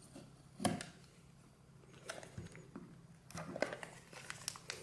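Hands working open the cardboard box of an Apple Lightning Dock: a sharp knock shortly after the start, then scattered clicks, scrapes and rustles of packaging being pulled and torn at.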